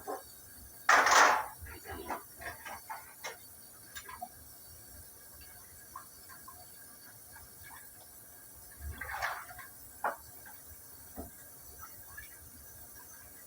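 Scattered clicks and knocks of objects being handled, with two short noisy scraping or rustling bursts: one about a second in, the loudest, and another near nine seconds.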